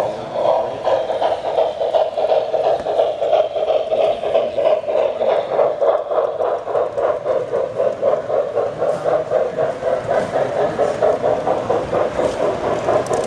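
Model freight train rolling past on three-rail metal track: a steady hum of wheels and cars on the rails with a quick, even pulsing rhythm.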